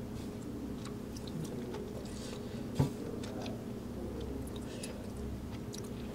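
A person blowing short puffs of breath on a hot mala tteokbokki rice cake held on chopsticks to cool it, with soft mouth sounds. A single sharp click comes a little under three seconds in.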